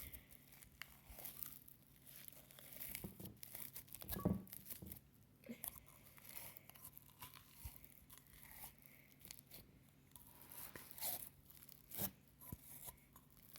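Snow fizz slime being stretched and squished by hand, giving faint crackling and sizzling pops with a few louder clicks. The slime is a little underactivated and sticky.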